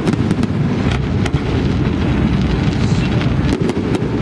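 Fireworks show: many sharp pops and crackles from bursting shells over a continuous low din.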